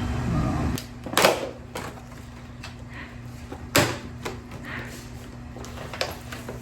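Tools and their packaging being handled during an unboxing: a series of knocks and clatters, the two loudest about a second in and near four seconds, over a steady low hum.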